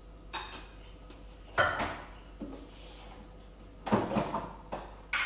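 Kitchen clatter: a handful of separate sharp knocks and clinks, like dishes and cupboard doors or drawers, the loudest about a second and a half in and again around four seconds in.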